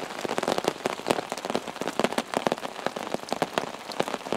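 Pouring rain, with many close drops striking at an irregular pace.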